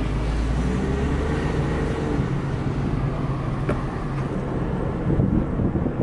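Car being driven, heard from inside the cabin: a steady low engine and road rumble, heaviest in the first couple of seconds.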